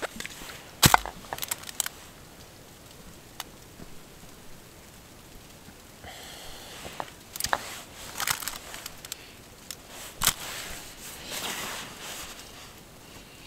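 Small items being handled by hand: scattered clicks, knocks and crinkling rustles, with sharp clicks about a second in and about ten seconds in.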